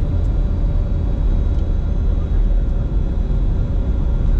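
Steady flight-deck noise of a Bombardier Challenger 605 on final approach in landing configuration: a low rumble of airflow and engine noise with a few faint steady tones above it.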